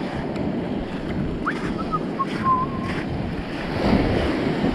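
Wind buffeting the microphone over surf breaking on a shingle beach, with a few short faint tones in the middle and a louder gust or wave about four seconds in.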